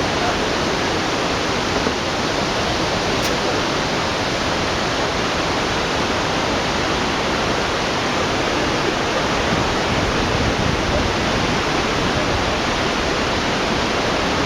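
Large waterfall on the Kaveri River at Shivanasamudra, falling in a steady, even rush. The river is in high flow.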